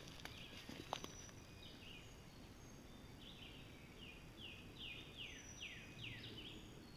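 Faint woodland songbird singing: a series of quick, downward-slurred whistled notes, thickening to about two a second in the second half, with a few thin high notes from another bird.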